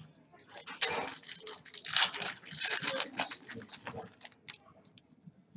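Foil trading-card pack wrapper being torn open and crinkled, a dense crackle for a few seconds. After that come a few light scattered ticks as the cards are handled.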